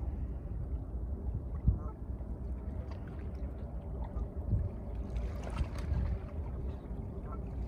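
Low, steady wind rumble on the microphone over a calm seashore, with faint water sounds and a soft bump or two.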